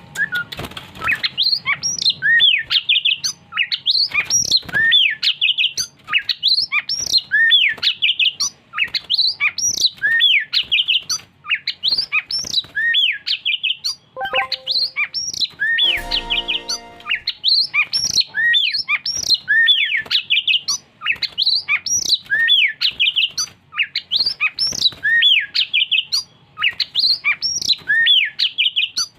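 Oriental magpie-robin (kacer) singing a continuous, varied song of loud whistled notes sweeping up and down. About halfway through there is a short buzzy rasp.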